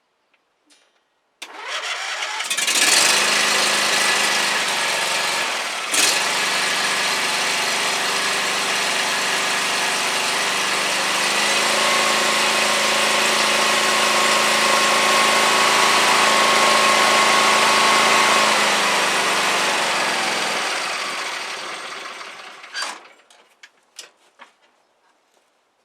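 John Deere LA135 riding mower's 22 hp V-twin engine cranking and catching about a second and a half in, then running steadily, its speed stepping up a little about halfway through before the sound dies away near the end. It starts and runs with the cracked fuel-pump vacuum line replaced.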